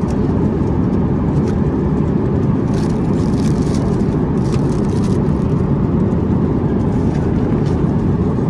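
Steady cabin noise of a jet airliner in flight: an even, low rush, with a light rustle about three to five seconds in.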